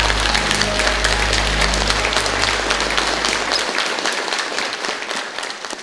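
A large crowd applauding with dense, steady clapping over the closing low notes of a song; the music stops a little past halfway, and the applause thins and fades near the end.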